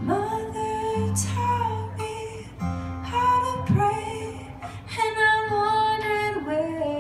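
A woman singing long, held notes without clear words over a strummed acoustic guitar.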